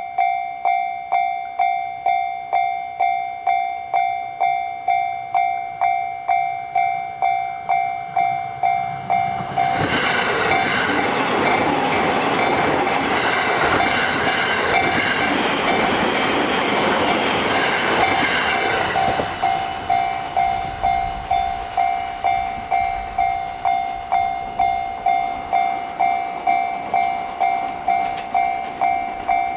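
Japanese level-crossing warning bell dinging about twice a second. From about ten seconds in to about nineteen seconds, a JR Sobu Line electric train runs through the crossing, and its rumble and wheel-on-rail noise drowns out the bell. The bell then carries on ringing after the train has passed.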